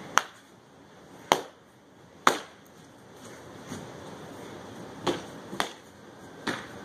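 Nerf foam swords striking each other in a sparring duel: about six sharp whacks at uneven intervals, three in the first half, a short lull, then three more near the end.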